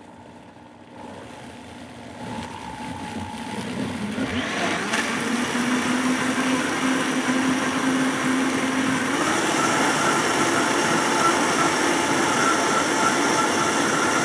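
Countertop blender running as it purées leafy greens, blueberries and liquid into a green smoothie. It starts low, rises over the first few seconds, then steps up to a higher, louder speed about nine seconds in.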